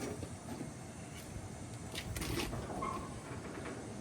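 A few light knocks and rustles, mostly from about halfway, as parts are moved about inside a car's trunk.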